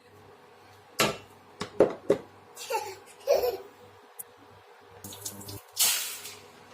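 A young child's short laughs and squeals, with kitchen clattering and a brief noisy burst near the end.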